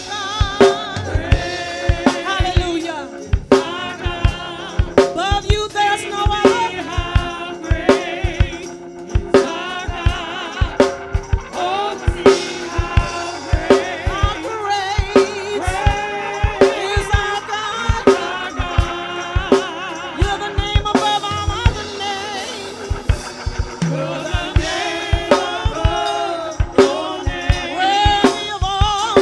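Gospel praise music: singing over a drum kit keeping a steady beat.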